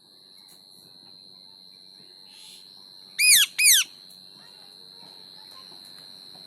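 Pet parrot giving two short, loud whistling calls in quick succession about three seconds in, each rising and then falling in pitch. A steady high-pitched whine runs underneath.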